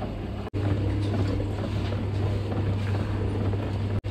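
Electric motor and gearbox of a mechanical stirrer running with a steady low hum as its paddle churns coconut and jaggery in an iron kettle. The sound drops out for an instant about half a second in and again near the end.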